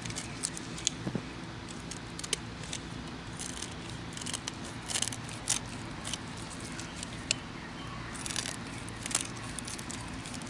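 Kitchen scissors snipping through a small bluegill's head, with a small knife scraping scales off the fish: a scatter of short crisp snips, clicks and scrapes, irregular, over a steady low hum.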